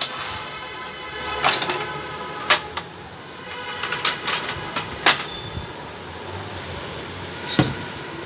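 Hard plastic clacks and knocks as the top housing of an Epson L130 inkjet printer is lifted off and handled: half a dozen sharp clicks, the loudest about two and a half and five seconds in, over a faint steady background hum.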